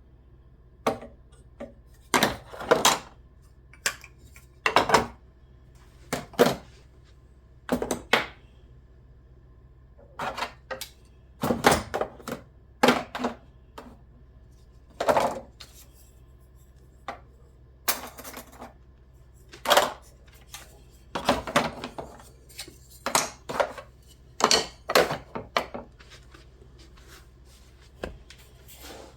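Kitchenware being handled and set down: irregular sharp clinks and clatters, some in quick clusters, over a faint steady low hum.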